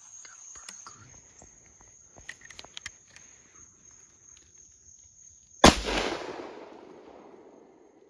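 A muzzleloader rifle fires a single loud shot about five and a half seconds in, its report echoing and dying away over the next two seconds. Before the shot, a steady high insect buzz and a few faint clicks.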